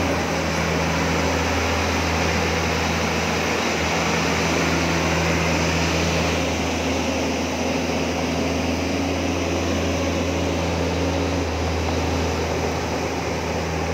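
Diesel engine of a JCB JS200 crawler excavator running steadily while the machine travels on its tracks.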